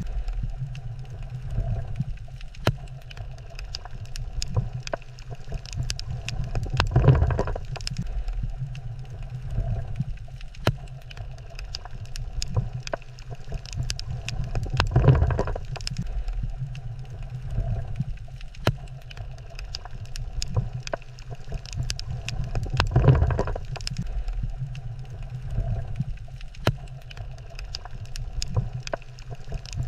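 Underwater reef ambience: a steady low rumble with scattered sharp clicks, and a louder rushing swell about every eight seconds.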